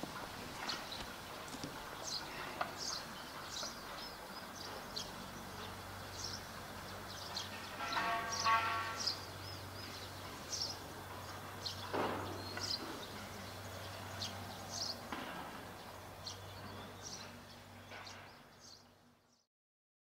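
Outdoor ambience with small birds chirping repeatedly over a low steady hum, a brief pitched call about eight seconds in and a single knock a few seconds later; it fades out near the end.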